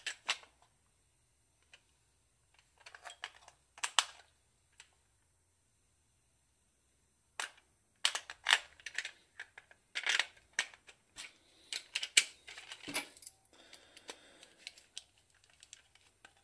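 AA batteries being taken out of and reseated in a plastic toy remote control's battery compartment: irregular clicks, taps and small rattles, quiet for a few seconds in the middle and busier in the second half.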